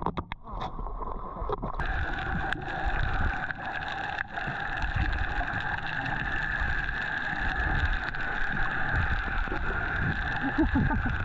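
A boat's motor running steadily as a constant hum, with a few sharp knocks in the first two seconds.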